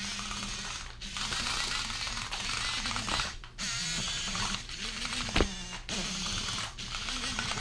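Small electric motor of a remote-control toy whirring in spurts, stopping and starting several times, with a sharp click about five seconds in.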